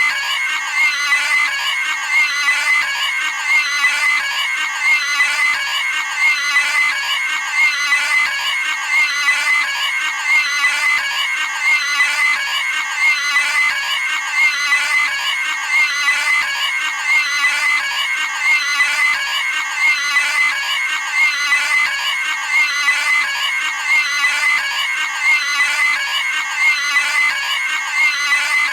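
Cartoon pig screaming sound effect: a high-pitched squealing scream repeated over and over in a loop, about one scream every second and a half.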